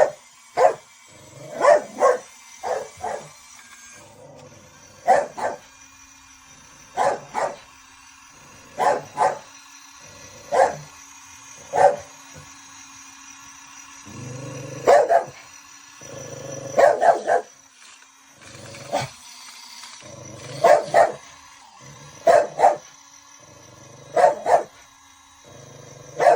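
A dog barking repeatedly, single and double barks every second or two, over a faint steady whine.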